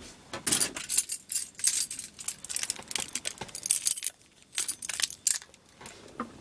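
A bunch of keys on a key ring jingling and clinking in the hand, in a quick run of clinks that thins out after about four seconds.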